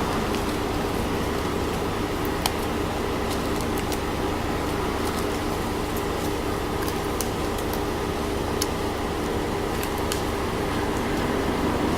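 Steady low mechanical hum, like an idling engine or nearby traffic, with scattered sharp clicks.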